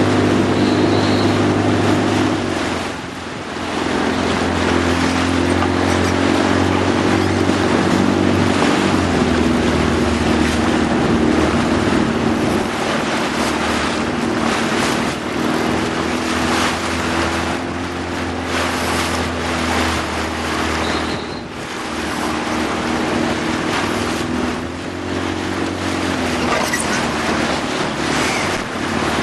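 Motorboat engine running steadily at low speed, its pitch drifting slightly up and down and easing off briefly twice, with wind and water noise.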